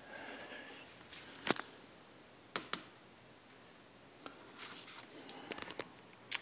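Quiet handling sounds: faint rustling with a few sharp, separate clicks, the loudest near the end.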